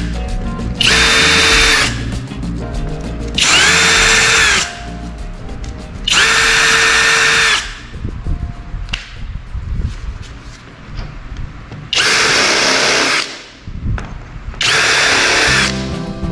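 Worx WU369 electric drill running in five short bursts of about a second each. In each burst the whine rises as the drill spins up and drops as it stops, with a longer pause before the last two.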